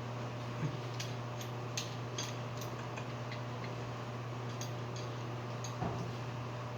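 Steady low electrical hum with scattered light clicks and taps of small hard objects.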